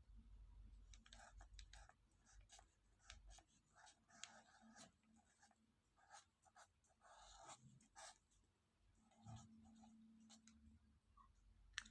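Near silence, with faint scattered scratching and rustling.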